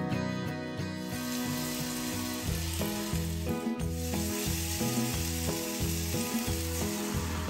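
Masala-marinated fish pieces sizzling in hot oil in a frying pan as they are laid in, the sizzle starting about a second in, over background music.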